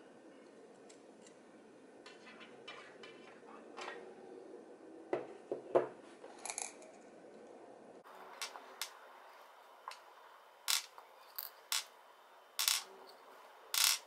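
Irregular sharp metallic clicks and clinks of small steel ball bearings being picked out of an NRG steering-wheel quick-release hub and set down on a wooden desk. The loudest clicks come near the end.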